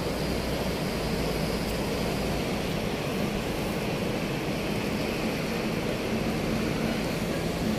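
Steady noise of city street traffic, with a faint low engine hum and no distinct events.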